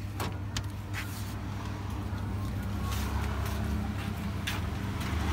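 Steady low hum with a few light clicks and knocks as plastic cups of shaved ice are handled and set down on a chest freezer's lid.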